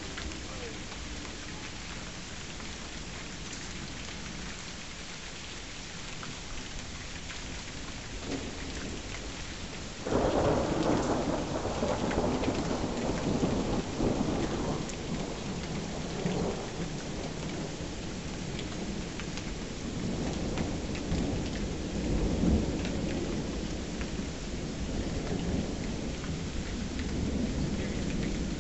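Steady rain falling, then about ten seconds in thunder breaks out suddenly and rolls on in long rumbles, swelling again several times, loudest around the middle and a little after.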